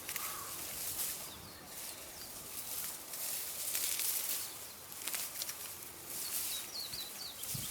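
Rustling of grass and weeds being cut by hand, in uneven bursts, with a few short bird chirps near the end.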